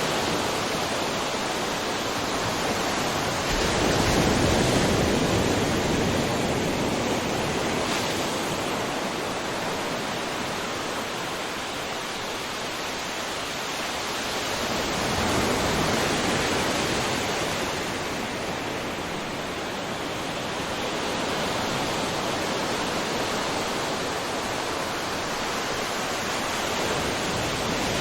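Ocean surf washing on a shore in a continuous rush of water noise, swelling and easing as waves break about every twelve seconds.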